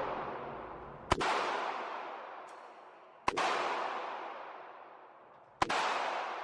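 Four single gunshots fired one at a time, about one to two seconds apart. Each shot is a sharp crack followed by a long echoing decay that fades before the next.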